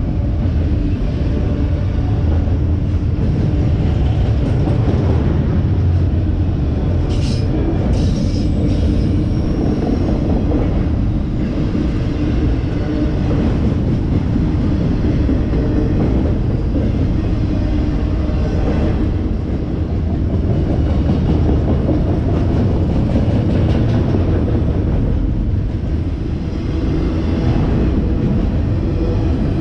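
Long freight train of autorack cars rolling slowly past: a steady rumble of steel wheels on the rails, with a brief sharper noise about seven seconds in.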